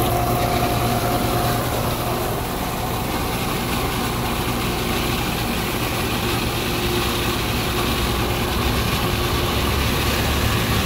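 Flint & Walling SBJ-series centrifugal irrigation pump and its 230-volt electric motor running steadily on freshly replaced ball bearings, at the first start after the repair. The pump is pushing air out of the sprinkler lines.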